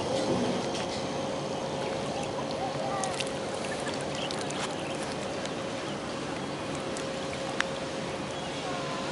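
Steady outdoor background noise with a continuous hum, a few faint chirps and a sharp click near the end.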